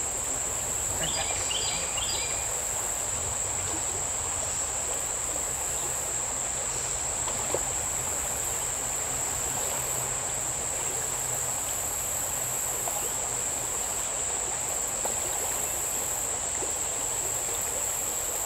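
Steady high-pitched drone of insects over the even rush of a small mountain stream.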